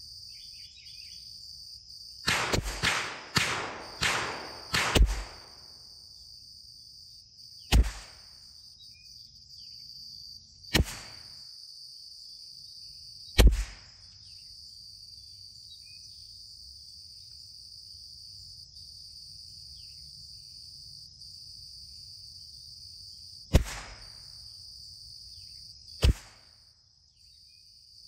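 Shots from a CZ 457 MTR bolt-action .22 LR rifle firing Eley Contact ammunition, heard as sharp cracks. A quick run of cracks comes about two seconds in, then five single shots a few seconds apart. A steady high chirring of insects runs underneath.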